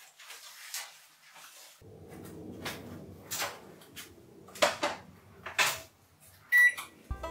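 Kitchen handling sounds: a steady low hum sets in, a few sharp knocks follow, and a short high electronic beep sounds near the end.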